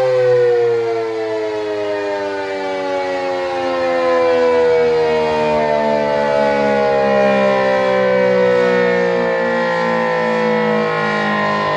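ACA P-15 outdoor warning siren winding down after an alert signal, its loud tone sliding steadily lower in pitch.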